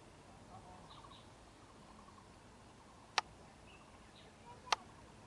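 Two sharp clicks about a second and a half apart, over faint outdoor background with a few faint small-bird chirps.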